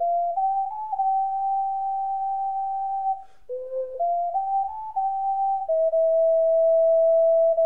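Medium-sized ocarina played solo: a slow melody of pure, flute-like held notes stepping up and down, with a short breath break about three seconds in.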